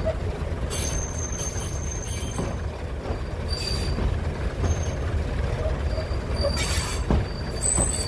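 Passenger train coaches running along the track, heard from the carriage window: a steady low rumble with high, thin wheel squeal that comes and goes as the train takes the curve.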